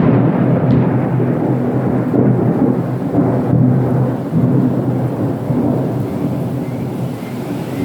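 Thunder rumbling in a long, low roll over rain, easing slightly toward the end.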